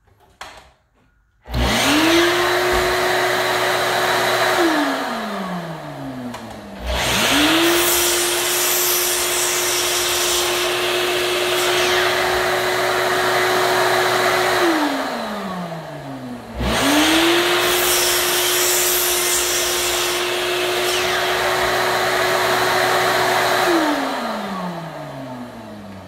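Sliding miter saw started three times, its motor spinning up to a steady whine and winding down after each cut of wood, with a Shop-Vac wet/dry vacuum running alongside. The vacuum is switched on and off automatically with the saw by a homemade automatic switch, its rush trailing briefly after each saw run.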